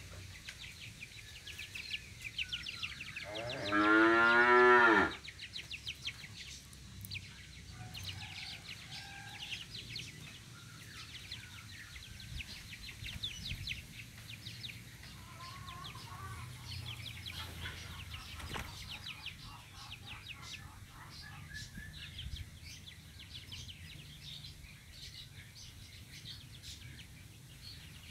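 One long, loud animal call about three seconds in, lasting nearly two seconds, over many short high chirps.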